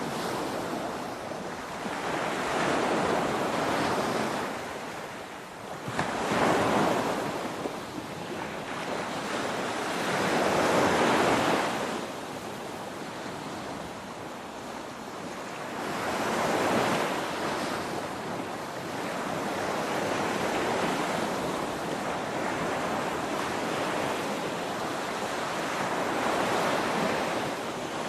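Ocean surf: waves breaking and washing in one after another, the rush of water swelling and fading every few seconds, with the loudest surges about six and eleven seconds in.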